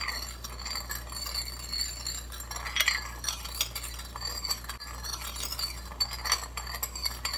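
Metal spoon stirring a thin liquid sauce in a small ceramic bowl, clinking lightly and irregularly against the bowl's sides as the sugar is mixed in.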